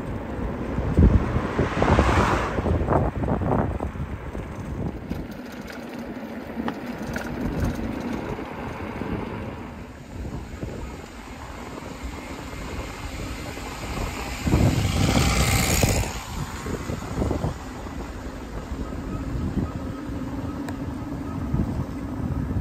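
Wind rush and road rumble picked up by a bike-mounted camera while cycling along a lane, with a car passing close by about two seconds in. A second loud rush comes about two-thirds of the way through.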